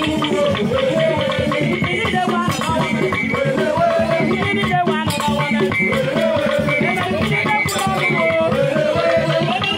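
Music: voices singing over shaken rattles and other percussion, at a steady, busy beat.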